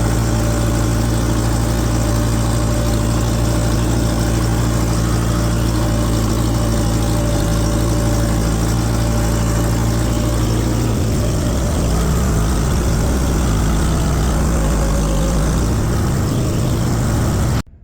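Engine running steadily at close range. About eleven seconds in, its steady note loosens and turns rougher, and the sound cuts off abruptly near the end.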